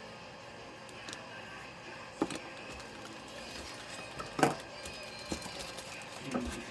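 A few short knocks and clicks of small accessory parts and tools being handled and set down, the loudest about two seconds in and again a little past four seconds, over a faint steady background hum.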